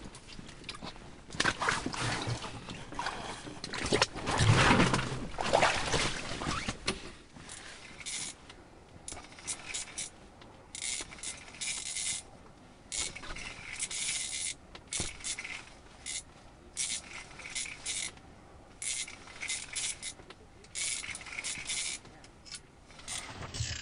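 Rustling and scraping of clothing and fishing gear: a flurry of handling noise in the first several seconds, then short rustles repeating roughly once a second.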